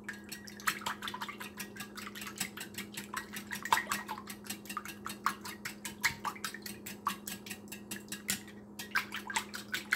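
Wire whisk beating eggs, oil and milk into a batter in a ceramic bowl: a quick, uneven run of clicks as the wires strike the bowl, about four a second, over a steady low hum.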